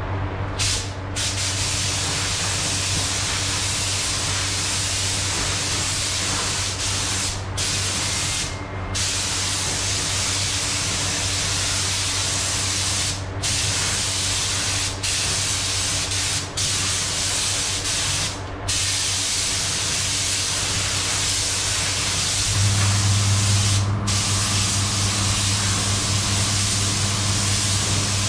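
Paint spray gun hissing as a coat is sprayed onto a car bumper, the hiss cutting out briefly several times between passes. A steady low machine hum runs beneath, louder from about two-thirds of the way in.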